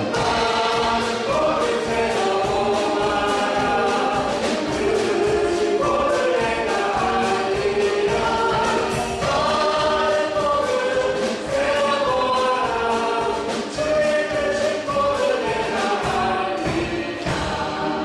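Church praise team singing a gospel worship song in several voices over band accompaniment with a steady beat, fading out near the end.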